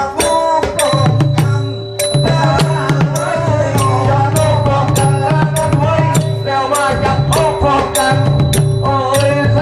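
Live southern Thai Nora dance music. Sharp clicking percussion strokes keep a steady beat about twice a second over a pulsing low drum pattern, with held melodic tones above.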